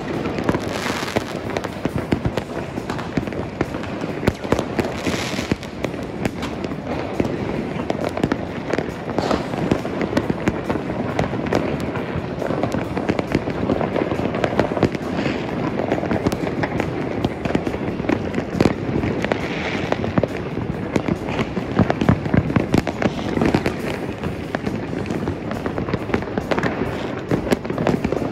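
Fireworks and firecrackers going off all over a city at once: a dense, unbroken barrage of bangs and crackling, with a brighter hiss every few seconds.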